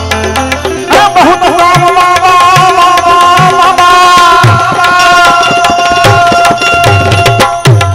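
Indian devotional folk music: tabla strokes, with deep bass-drum notes whose pitch slides down, under a melody that holds one long note from about a second in until near the end.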